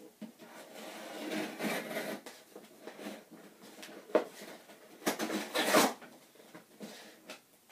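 Packing tape on a cardboard box being cut and scraped with a small knife, with a sharp click about four seconds in, then a loud rip as a strip of tape is torn off the box near the end.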